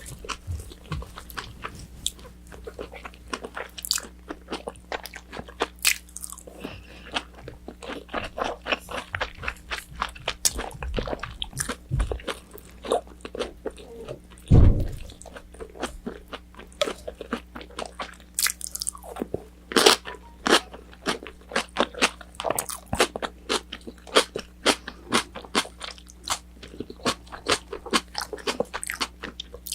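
Close-miked chewing and crunching of battered fried orange chicken: a dense run of crisp, wet bites and mouth sounds, with one louder low sound about halfway through.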